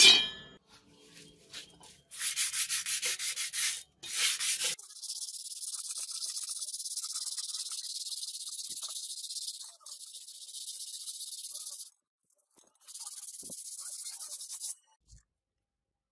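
Hand-sanding a rusted steel sword blade with sandpaper: a sharp knock at the start, then several runs of fast back-and-forth scrubbing strokes, the first ones separate and the later ones running together into a steady rasp, with short pauses between runs.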